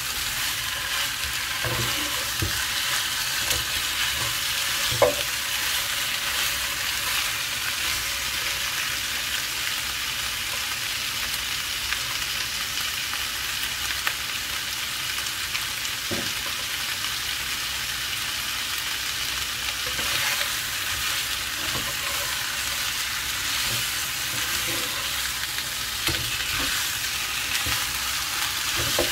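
Chicken pieces sizzling steadily in a pan while being stirred, with a few sharp knocks of the utensil against the pan, the loudest about five seconds in.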